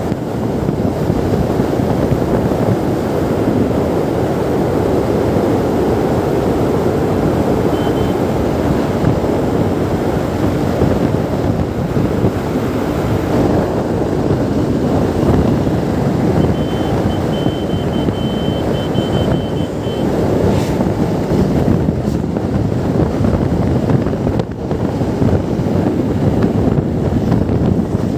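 Heavy wind buffeting the microphone on a motorcycle at speed, over the running of the Hero Xtreme 160R's single-cylinder engine and road noise. A faint high beeping comes through briefly about two-thirds of the way in.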